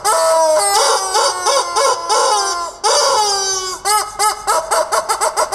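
Rubber screaming-chicken toy squeezed again and again, letting out loud shrill squawks: long drawn-out ones alternating with runs of short quick squawks, sometimes two overlapping.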